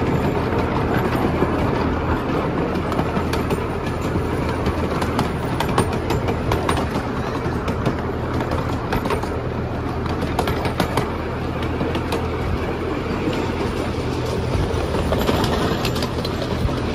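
Small ride-on park train running along its track, heard from one of its open cars: a steady low hum under a running rumble, with frequent clicks and clacks from the wheels on the rails.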